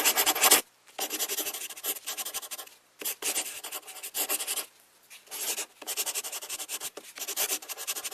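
A drawing tool scratching on paper in quick back-and-forth strokes, as in colouring in. It comes in several bouts of a second or so with short pauses between, loudest at the start.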